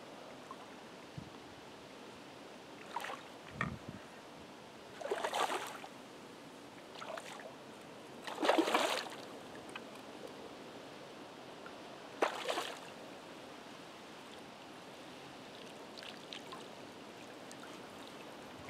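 Water splashing at the bank in several short bursts, the loudest about halfway through, as a hooked zander is brought in close to the bank.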